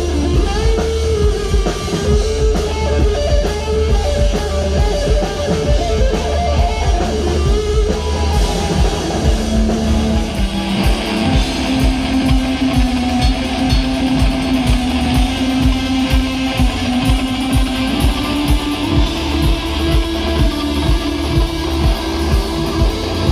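A rock band playing live: electric guitars and a drum kit over a strong low bass, with a steady beat. About ten seconds in, the guitar settles into a long held note and the cymbals grow louder.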